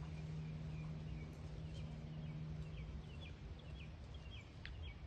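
Small bird chirping in a run of short, repeated high notes, over a low rumble. A low steady hum stops about three seconds in.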